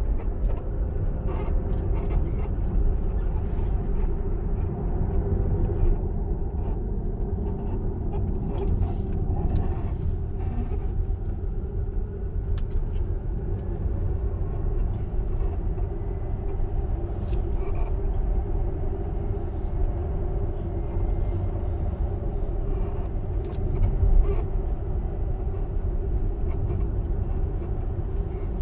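Tesla Model X driving, with a steady low rumble of road and tyre noise and scattered sharp clicks and knocks every few seconds: the abnormal noise from its front suspension shock absorbers.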